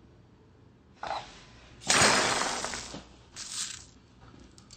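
A glossy ceramic horse figurine smashed on a hard floor: a loud shatter about two seconds in that dies away over about a second, as it bursts into a spill of Skittles candies. A smaller clatter follows about a second later.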